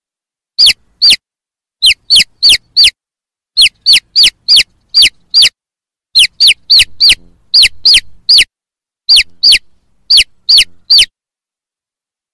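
Chick peeping: loud, sharp peeps that each fall in pitch, coming in quick runs of two to six with short pauses between.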